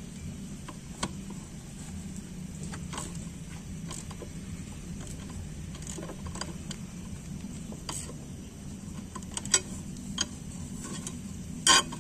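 A wrench clicking and clinking on the bolts of a homemade puller as they are tightened in turns to press a stuck scooter CVT roller housing off its shaft. The metal clicks are scattered and irregular, the loudest cluster just before the end, over a steady low hum.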